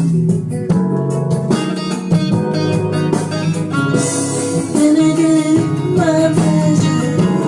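Guitar music, plucked and strummed, with a voice singing along, the melody line coming in stronger about five seconds in.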